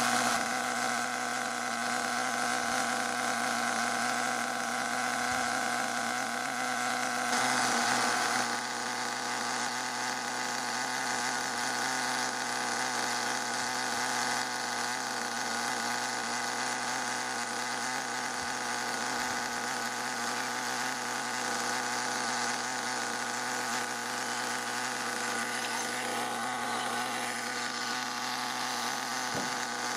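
Small two-stroke nitro engine of an HPI Savage XL 5.9 RC truck running steadily at a low, even speed during break-in. Its note shifts slightly about eight seconds in, then holds steady again.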